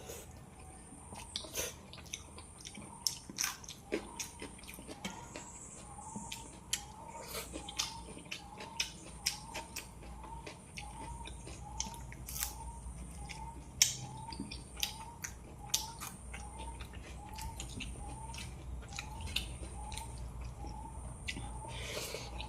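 Close-up chewing of fried fish, with irregular wet mouth clicks and smacks. A faint short chirp repeats about twice a second behind it from about a quarter of the way in.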